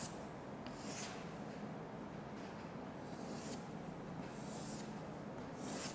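Chalk drawn across a chalkboard: three short, faint scratchy strokes over quiet room noise.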